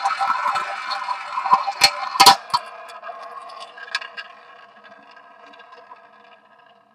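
Roulette wheel spinning with its ball rolling round the track, a steady whir that slowly dies away. A few sharp clacks about two seconds in as the ball drops and bounces among the pockets before it settles.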